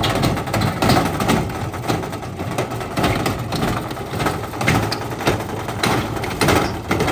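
Whirlpool washing machine running with heavy bricks in its drum: the bricks bang against the drum over and over, about once a second, over a steady mechanical running noise.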